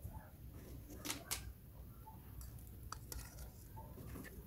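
Faint clicks and small scrapes of raw shrimp being handled and deveined with a toothpick in an aluminium bowl, with two sharper clicks about a quarter second apart a little over a second in.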